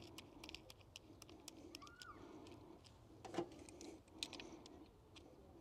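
Faint small clicks and taps from a brass valve core removal tool and its fittings being handled, with one louder tap about three and a half seconds in.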